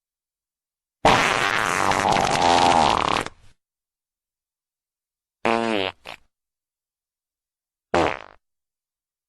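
Three fart sound effects with dead silence between them: a long, wet, sputtering one of about two and a half seconds, then two short ones with a falling pitch.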